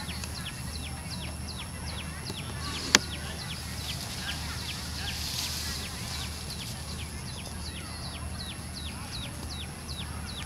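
An animal calling in a quick, regular run of short, high chirps, each sliding downward, about two or three a second, over a steady low hum; one sharp click about three seconds in.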